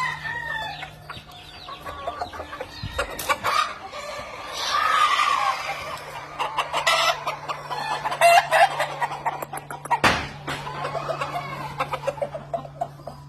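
Gamefowl chickens clucking, with roosters crowing in long arching calls, once at the start, again about four and a half seconds in and about eight seconds in. A steady low hum runs under them.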